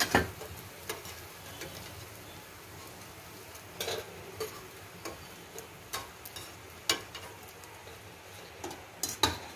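Bread pieces in hot oil sizzling softly while a metal slotted spoon knocks and scrapes against the frying pan at irregular intervals, about once a second, as the fried pieces are lifted out.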